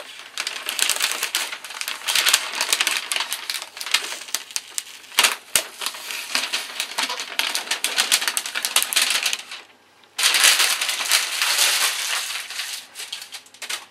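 Green masking paper crinkling and rustling as it is handled and pressed down over a model airplane's wing, full of quick crackles, with a brief pause about ten seconds in.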